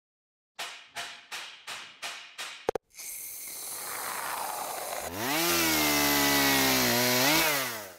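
Logo-intro sound effects: six quick, evenly spaced hits, a sharp click, then a whoosh that swells. About five seconds in, a loud motor-like sound starts, like a power tool revving. It rises in pitch, holds steady, wavers and then falls away.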